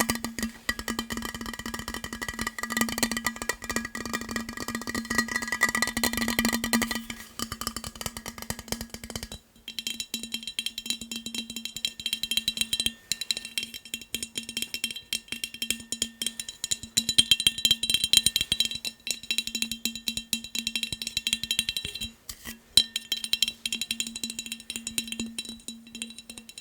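Fast tapping on hard objects, many taps a second, with the objects ringing faintly under the taps. About seven to nine seconds in the tapping moves to a different object with a higher ring.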